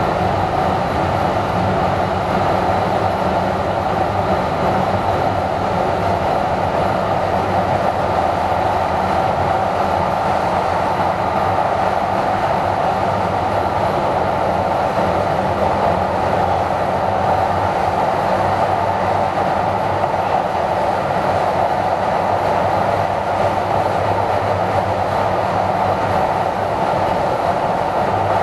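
Steady running noise of a DART light rail car under way, heard from inside the passenger cabin: an even rumble and hum of wheels on track and traction motors at constant speed.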